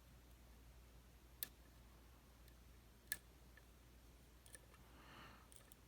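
Faint, sharp clicks from a pick working the pins of a West 916 12-pin dimple lock held under tension: two clearer clicks about a second and a half apart, then a few lighter ones near the end.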